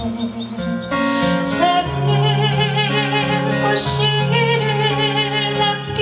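A woman singing live to her own acoustic guitar, holding long notes with vibrato over the guitar's steady chords.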